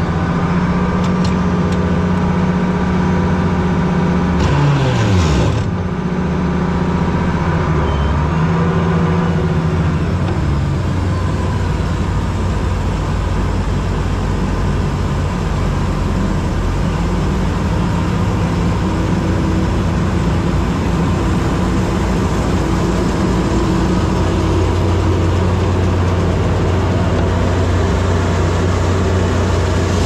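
International Harvester 1486 tractor's six-cylinder turbo diesel engine running steadily under way, with its note sliding down briefly about five seconds in.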